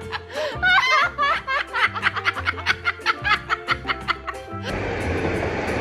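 Rapid, pulsing laughter over background music; about four and a half seconds in it cuts to a steady rushing noise.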